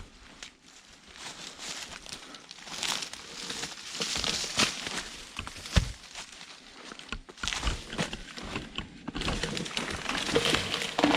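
Rustling and crackling of branches and leaves being handled, coming in uneven swells with scattered sharp snaps and clicks.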